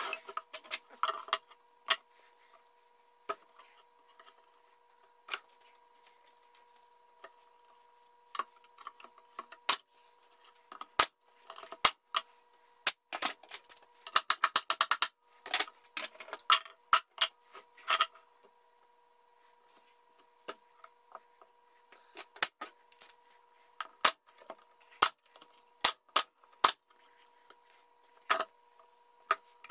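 Pneumatic brad nailer driving nails into a pine beehive cover, a sharp snap with each shot, scattered through with a quick run of shots about halfway through. There are also knocks of wooden strips being set down and shifted on the cover.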